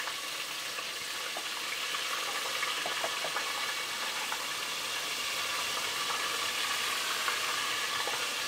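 Fish fillets dredged in flour deep-frying in hot vegetable oil: a steady sizzle with scattered small pops and crackles.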